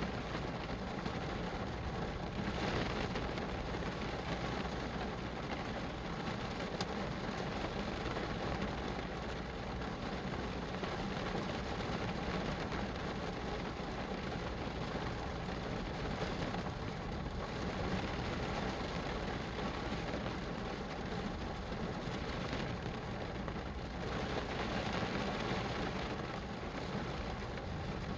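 Steady rain falling, a continuous even hiss with a few gentle swells in loudness.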